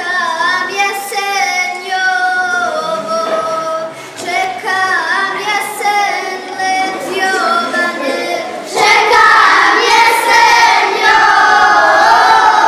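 A group of children, girls' voices, singing a folk song together. A little under nine seconds in, the sound jumps to a louder, fuller take.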